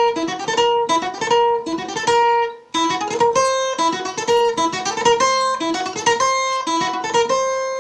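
Acoustic guitar playing a quick flamenco-style passage of plucked notes and chords, a fragment being practised. The playing breaks off briefly about two and a half seconds in, starts again, and ends on a chord left ringing and fading.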